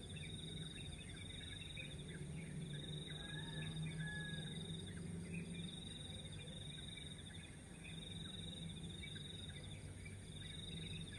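Outdoor ambience of insects trilling in short pulsed bursts repeated every second or two, with scattered faint bird chirps and a low steady hum underneath.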